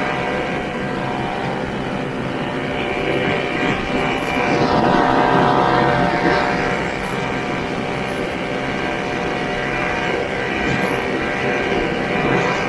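1969 Ski-Doo Olympique's 320cc single-cylinder two-stroke engine running steadily as the sled cruises across the snow, slightly louder about five seconds in.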